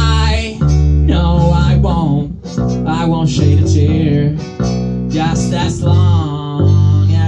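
Live band playing a song: strummed acoustic guitar over bass notes, with singing.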